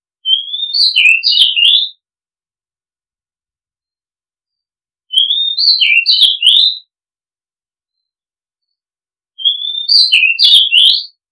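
Oriental magpie-robin singing the same short phrase three times, about four seconds apart: a whistled note sliding upward, then a quick run of varied chirping notes, each phrase lasting under two seconds.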